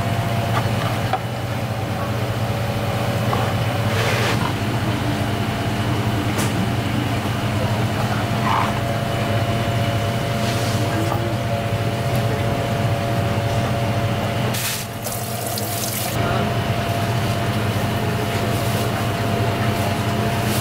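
Commercial kitchen background: a steady low machine hum with water running from a tap, and a few brief knocks and clatters.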